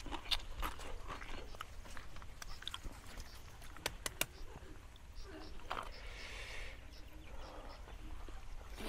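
A person chewing and crunching food close to a clip-on microphone, with scattered small mouth clicks and crackles.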